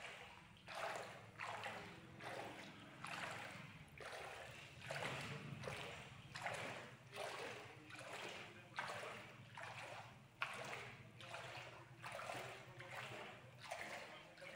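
Footsteps wading through shallow floodwater, a slosh and splash with each step about every three-quarters of a second, over a low steady hum.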